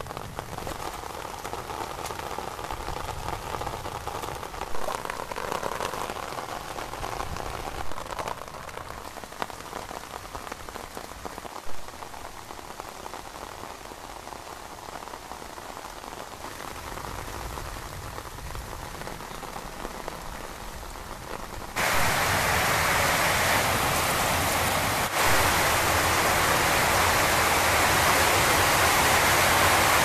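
Steady monsoon rain falling on garden plants and leaves, with a few louder single drips. About 22 seconds in, the sound jumps suddenly to a much louder, fuller rush of rain.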